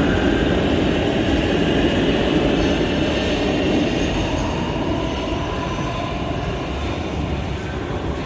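A train running on rails: a steady rumbling rush with faint high wheel squeal drifting above it, easing off a little toward the end.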